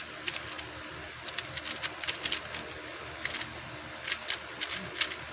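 A 3x3 speedcube being turned quickly by hand: irregular runs of sharp plastic clicks as the layers snap round, with short pauses between runs.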